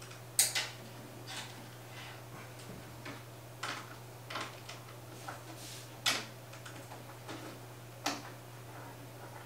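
Scattered light clicks and knocks, about half a dozen, from an EVGA 120 mm AIO liquid cooler's pump head and its mounting screws being handled and fitted onto a CPU socket mount.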